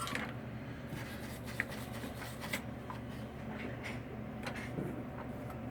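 Faint handling noises, light rubs and small taps, as a circuit board and soldering tools are handled on a workbench, over a steady low electrical hum.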